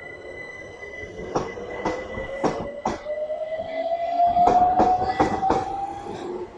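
London Overground class 710 electric train pulling away, its traction motor whine rising steadily in pitch as it gathers speed. The wheels click in quick pairs over the rail joints.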